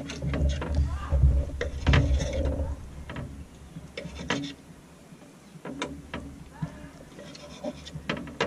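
A knife slicing wrasse fillet into nugget-sized pieces on a plate, the blade knocking against the plate every second or so. A low rumble runs through the first three seconds.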